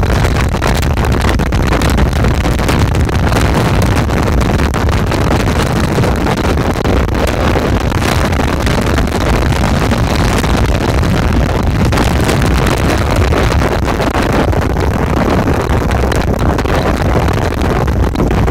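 A steady engine drone under heavy wind buffeting on the microphone, as from travelling at speed.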